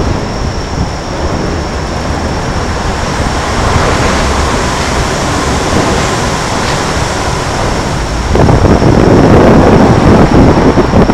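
Loud steady rushing of wind on the microphone mixed with traffic noise from the bridge roadway, growing louder about eight seconds in. A faint steady high whine sits above it.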